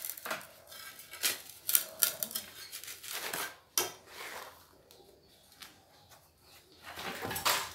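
Metal mason's trowel scraping and clicking against a board and wet cement mortar as it is worked under a plastic pot mould to free it. Irregular short scrapes and knocks, thinning out past the middle, with a louder cluster of knocks near the end.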